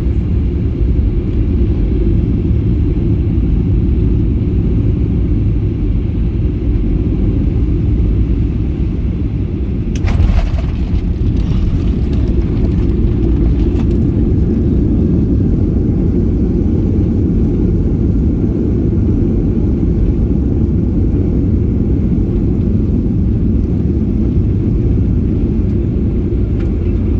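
Steady low rumble of a jet airliner's cabin, heard from a window seat. About ten seconds in comes a brief clatter of knocks and rattles, the loudest moment.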